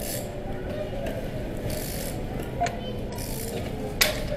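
Fabric rustling against a body-worn camera's microphone as the wearer moves, over steady store background noise. There is a small click about two and a half seconds in and a sharper, louder knock about four seconds in.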